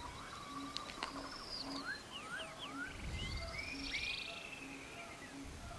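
Birds chirping and whistling, with quick rising chirps and longer whistled notes, over a soft low note repeating about twice a second in a nature-sound background.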